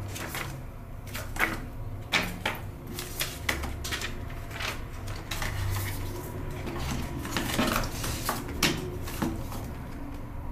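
Paper leaflets and a thin card insert being handled, unfolded and shuffled: crisp rustles with irregular sharp taps and flicks, the loudest about one and a half, two and eight and a half seconds in.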